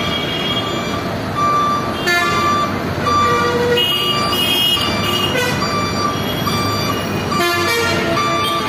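Heavy trailer truck reversing slowly: its reversing alarm sounds a short high beep about every three-quarters of a second over the running engine, with a few other short tones mixed in.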